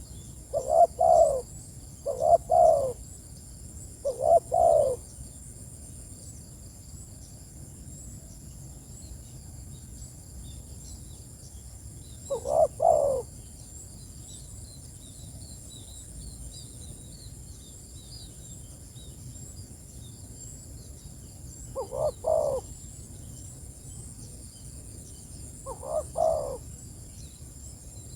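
Spotted dove cooing in short, low phrases: three in quick succession at the start, one about twelve seconds in, and two more near the end. Faint high chirps of small birds sound in the background.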